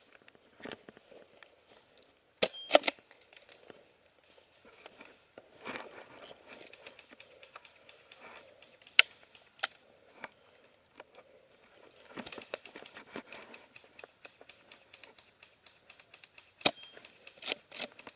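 Footsteps crunching and shuffling through dry leaf litter, with gear and clothing rustling and scattered sharp clicks and knocks, the loudest about three seconds in.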